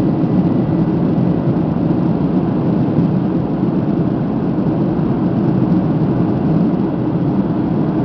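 Steady drone of a Boeing 767's engines and rushing air, heard inside the passenger cabin in flight.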